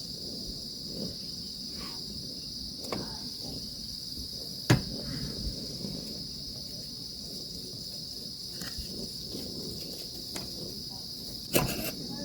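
Steady high-pitched chorus of insects, with a few sharp knocks: one about halfway through and several close together near the end.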